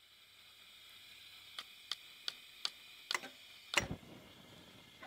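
A run of sharp clicks, about three a second, then a pair of clicks and a louder snap near the end, over a faint steady high hiss.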